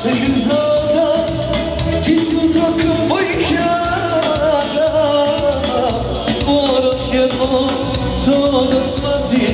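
Dance music with a lead vocal singing long, wavering notes over a steady beat.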